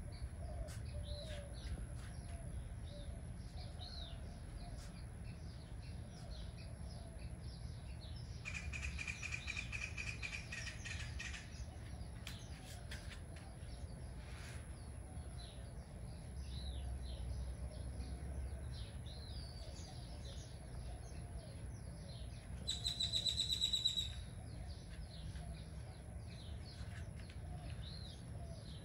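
Small birds chirping over and over, with a rapid trill about nine seconds in and a short, louder rapid call about three-quarters of the way through. A low background rumble runs underneath.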